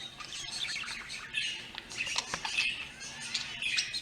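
Many birds chirping and squawking over one another without a break, played back from a video.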